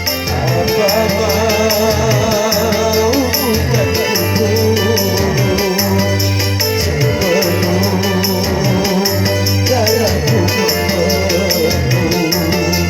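Music from a song cover: a wavering melody line over a repeating bass line with a steady beat.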